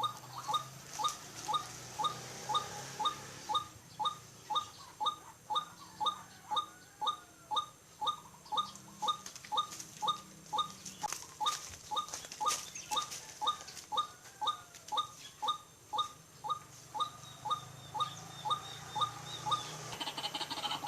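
White-breasted waterhen calling in a steady, unbroken series of short notes, about two a second.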